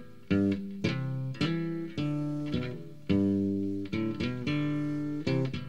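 Guitar playing on its own: plucked notes and chords about two a second, each ringing out and fading.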